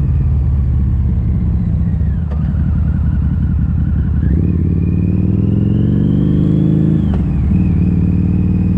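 Harley-Davidson V-Rod Muscle's V-twin running through Vance & Hines slip-on mufflers with the catalytic converters removed. It runs at a steady note, dips briefly about two seconds in, then climbs in pitch for nearly three seconds under acceleration before dropping sharply, and settles back to a steady note.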